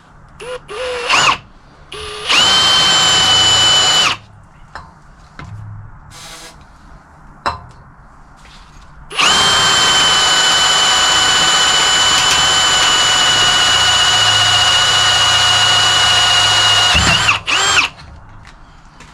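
Electric drill boring through a steel table leg with a 9 mm bit. It gives a couple of quick blips that spin up and down, a run of about two seconds, then a long steady run of about eight seconds with a high whine, and two short blips near the end.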